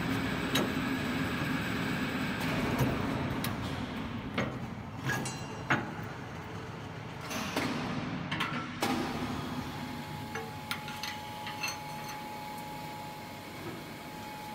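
Workshop machinery noise around a roll forming machine: a steady low rumble with scattered metallic clicks and knocks, and a thin steady whine that comes in about two-thirds of the way through.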